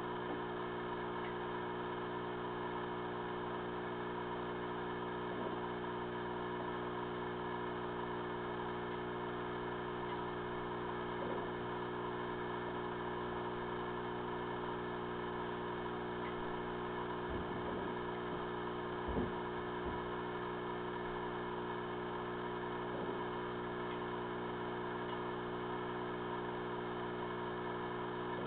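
Steady electrical hum holding several even tones, with a few faint soft knocks, the clearest about two-thirds of the way through.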